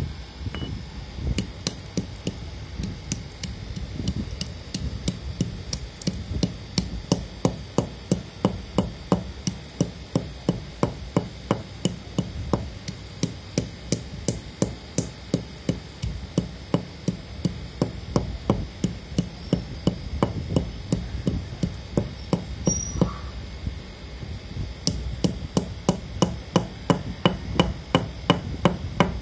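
Dry, unroasted multani mitti (fuller's earth) chunks being pounded and crushed with a metal pestle. There are repeated sharp crunching strikes, about two to three a second, with a short lull a little after the middle.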